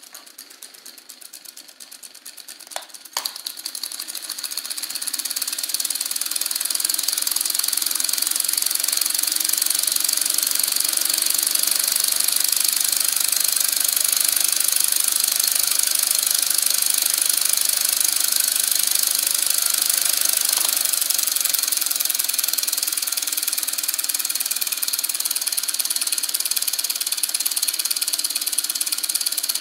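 Homemade two-cylinder solenoid engine running, its two 12-volt solenoids firing opposite each other, with a fast, even mechanical clatter. It grows louder over the first few seconds, then holds steady.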